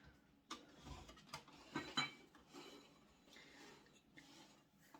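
A few faint clicks and knocks from the plastic parts of a Tassimo coffee machine as it is handled.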